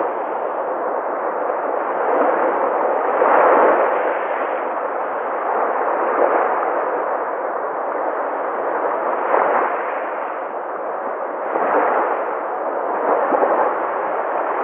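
Sea surf: a continuous rush of waves, swelling each time a wave breaks, several times at uneven intervals.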